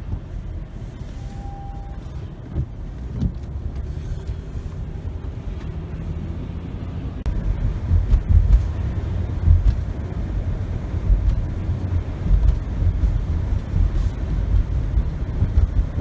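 Car driving on a snow- and slush-covered highway, heard from inside the cabin: a steady low road rumble that grows louder and more uneven about halfway through.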